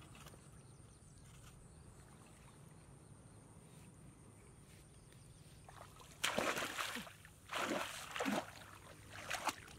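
Hands splashing and churning through muddy, shallow paddy water while digging in the mud, in several loud bursts starting about six seconds in after a quiet stretch.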